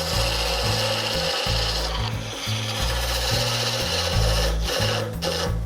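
Lathe turning tool cutting a spinning oak blank: a steady scraping hiss of wood being shaved, broken briefly about two seconds in and near the end as the tool leaves the wood. Background music's bass line repeats underneath.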